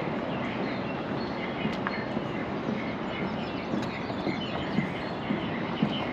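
Footsteps on a pedestrian bridge deck, a thud about every half second, heard more clearly in the second half over a steady outdoor rumble, with small birds chirping.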